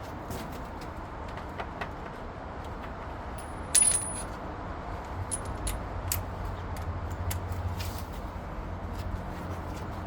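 Scattered metallic clicks and clinks of hand tools on engine bolts and brackets, with one sharp metal clink about four seconds in that rings briefly. A low hum runs under the second half.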